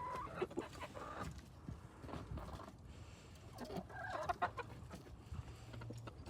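Backyard hens clucking in short bursts, with a cluster of calls in the first second and again near the middle.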